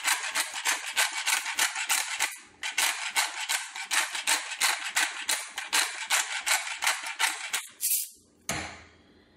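Hand-twisted pepper mill grinding black peppercorns: a fast, rhythmic crunching rattle of several twists a second. It pauses briefly about two and a half seconds in and stops near the end.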